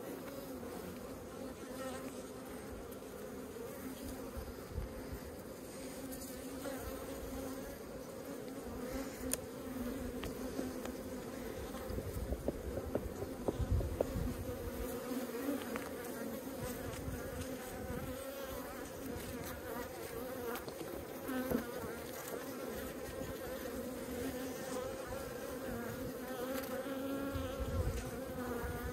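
Honeybees buzzing over an open hive: a steady, low hum of many bees.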